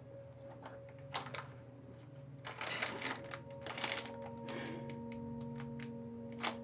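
Crinkling and rustling of a clear plastic bag of pills being handled, with a few small clicks from a cardboard box, over quiet music of long held notes.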